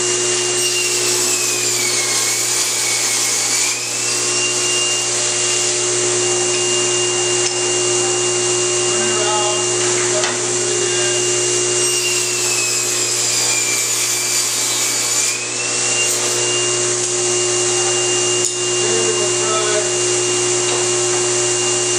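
Table saw running a Micro-Kerf40 thin-kerf blade, a steady motor hum under a high whine. Twice the whine sags in pitch for two to three seconds and comes back up, as the blade slows in the wood.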